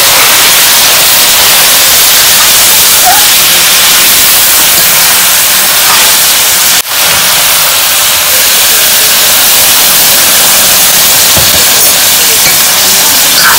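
Meat and spices sizzling hard in a hot karahi (wok) as they are stir-fried with a metal ladle: a loud, steady hiss, broken for an instant about seven seconds in.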